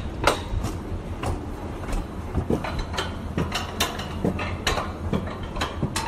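Rail toboggan cart running along its metal track: a steady low rumble with irregular sharp clacks and knocks, a few each second.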